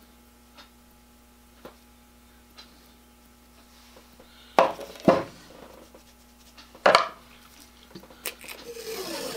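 Faint ticks about once a second, then hard clacks of a metal gear wheel and hand tools being put down and picked up on a workbench, two close together and a third about two seconds later. Near the end comes a short rasping rip of masking tape being pulled off its roll.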